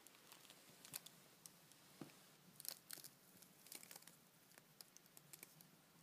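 Near silence with faint, scattered crinkles and soft clicks of fabric or plastic being disturbed.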